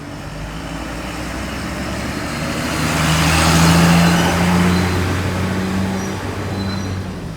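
A bus driving slowly past, its diesel engine running at a steady low note; the engine and road noise grow louder to a peak about four seconds in, then fade away.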